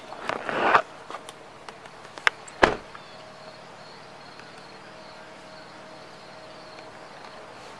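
A brief rustle and two sharp clicks in the first three seconds, then faint steady insects trilling in a pulsing pattern.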